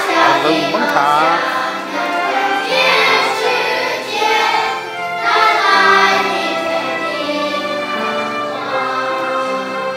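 Children's choir singing a slow song in several parts, with sustained held notes and a light accompaniment.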